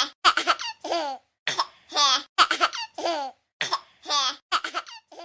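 A high-pitched child's laugh, looped like a sound effect and repeating about every second and a half. Each cycle is a run of quick choppy bursts followed by a longer falling laugh.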